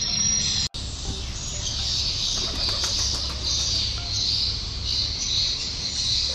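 Recorded swiftlet calls played through loudspeakers from a swiftlet nest house to lure white-nest swiftlets in: a loud, dense, high chirping that pulses about twice a second. It cuts out for an instant under a second in.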